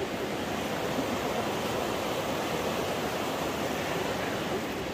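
Fast, turbulent mountain river rushing steadily.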